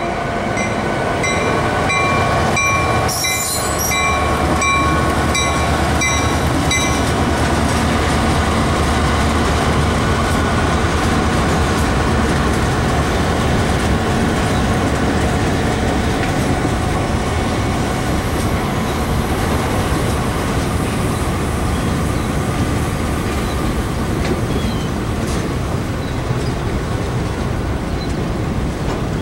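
Freight train passing close by: a steady rumble of wheels clicking over the rail joints, with a low diesel engine drone under it. A regularly repeating high ringing tone sounds over the first several seconds, then stops.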